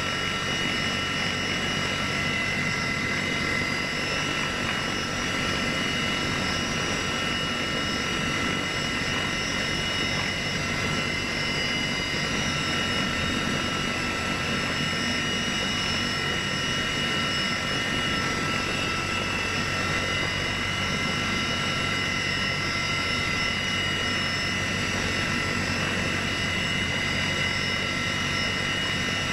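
Heavy transport helicopter heard from inside its cabin: a steady, unbroken din of turbine engines and rotors, with several constant high whining tones over the noise, as it carries an underslung load on its cargo hook.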